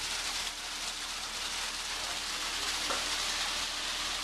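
Wet concrete sliding down a steel chute and pouring into a rebar form: a steady, gritty hiss, with a faint low hum underneath.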